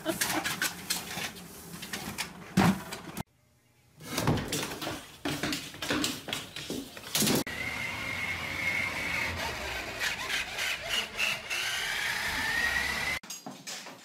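Knocks and taps, a short silent gap, more knocks, then the steady whine of a toy remote-control car's electric motor, rising in pitch near the end before cutting off.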